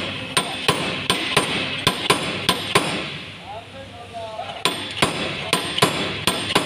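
A slide hammer bolted to a Mitsubishi Pajero's front wheel-hub studs strikes steel on steel again and again, working the hub assembly out of the steering knuckle. The sharp blows come about three a second in two runs, with a pause of a second or two in the middle.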